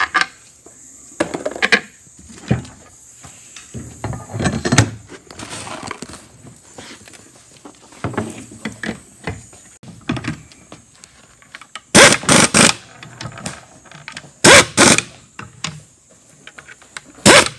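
Pneumatic butterfly impact wrench, set low at about 4 or 5, hammering in three short bursts in the second half as it runs whiz nuts down onto the wheel's bolts. Before that come lighter clinks and knocks of metal parts being handled.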